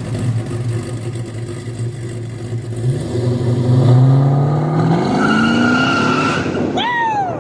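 Car engine accelerating under load, its note holding steady and then climbing in pitch about three seconds in. A short swooping tone rises and falls near the end.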